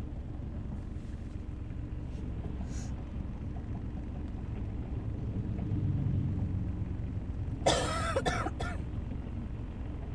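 A person coughing from a cold: a short run of coughs lasting about a second, near the end. Underneath, the steady low rumble of a car driving, heard from inside the cabin.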